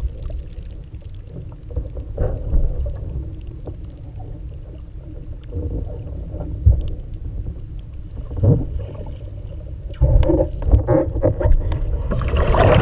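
Water rushing and splashing against a windsurf board under sail, over a steady low rumble. The splashing grows louder and busier near the end.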